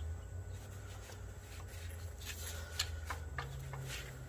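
Faint clicks and rubbing from a 392 Hemi camshaft being worked by hand into the block's cam bearings, turned and rocked by its timing gear, over a low steady hum.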